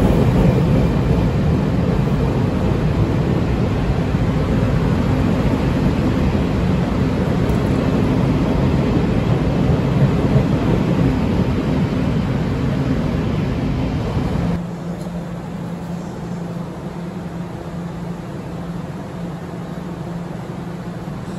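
Chu-Kuang express coaches running past through an underground station, a loud steady rumble of wheels on rail. About two-thirds of the way in it cuts off suddenly to a quieter steady hum with a faint low tone.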